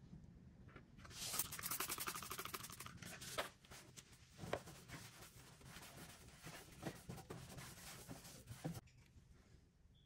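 A trigger spray bottle misting cleaner onto a car's exhaust muffler in a couple of seconds of hissing, starting about a second in. A cloth then rubs and wipes over the muffler's metal surface, with scattered soft clicks and scuffs.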